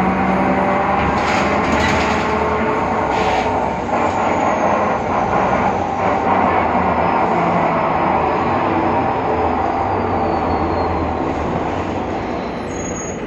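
Cabin sound of a BredaMenariniBus Avancity Plus city bus under way: steady running noise with a whine from the rear axle, which the uploader traces to a faulty differential. The sound eases slightly in the last few seconds.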